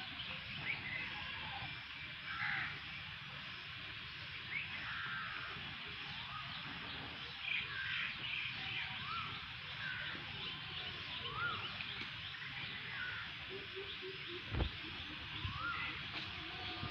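Birds calling: many short chirps over a steady high chorus, with a short rising call note repeated every second or two. One dull thump late on.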